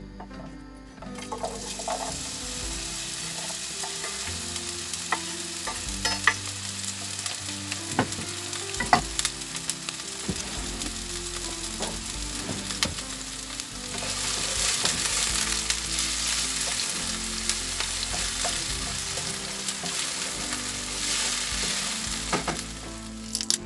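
Chopped onion tipped into hot oil in a non-stick frying pan and sizzling, starting about a second in, with sharp clicks and scrapes of a spatula stirring it. The sizzle grows louder about 14 seconds in.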